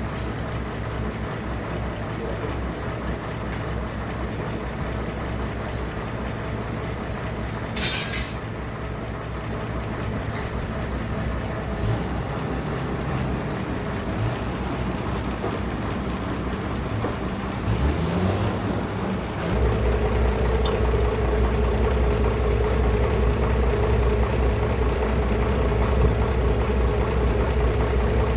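Sawmill machinery running steadily, with a short hiss about eight seconds in. Around two-thirds through, a rising whine leads into an engine running louder and steadier.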